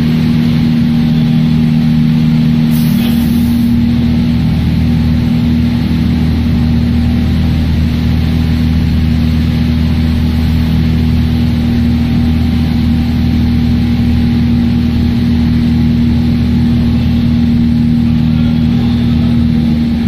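Industrial microwave sterilization machine running: a loud, steady electrical and mechanical hum over a low rumble. A lower tone in the hum drops out about three seconds in.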